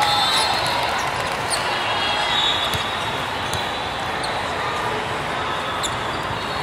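Steady hubbub of a large, echoing sports hall during a volleyball tournament: spectators' and players' voices mixed with scattered thuds of volleyballs being bounced and hit, and a few short high squeaks or clicks.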